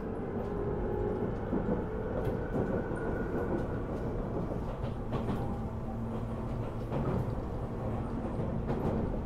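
Tobu 10000-series commuter electric train running along the line: a steady rumble of wheels on rail with a few clicks from the track and faint steady motor tones. A low steady hum joins about five seconds in.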